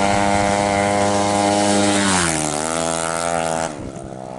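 A tuned 200cc automatic-scooter drag bike's engine running flat out at a high, steady pitch, then dropping in pitch a little past two seconds in and falling away sharply shortly after.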